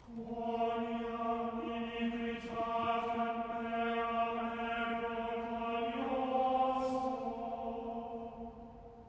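Singing voice holding a long, steady sung note, chant-like. The pitch steps slightly higher about six seconds in, and the note fades out near the end.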